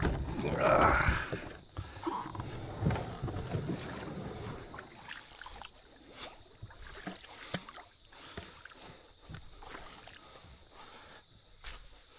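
A plastic kayak bumping and scraping against a fallen log, with the paddle knocking on the wood, loudest in the first couple of seconds; after that, softer scuffs and small knocks.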